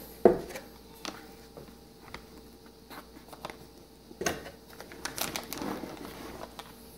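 Handling noise from a cardboard motherboard box: a sharp tap just after the start, scattered light clicks, then soft rustling and taps from about four seconds in as a hand reaches into the box.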